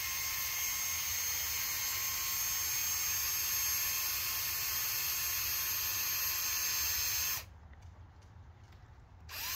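A small high-speed power tool running steadily with a high whine; it stops about seven seconds in and starts again near the end.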